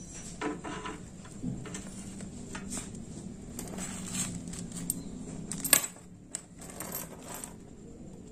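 Clicks and metallic clinks of a welding cable plug being pushed and twisted into a welder's front-panel socket, and a round metal connector being handled; one sharper click stands out about two-thirds of the way through.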